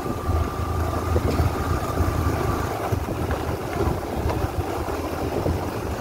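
Motorcycle riding along a rough gravel road: a low, steady engine rumble mixed with wind buffeting the microphone.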